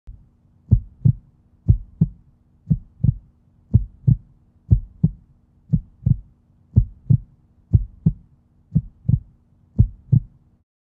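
Heartbeat sound effect: ten paired lub-dub thumps about once a second over a low steady hum, cutting off suddenly near the end.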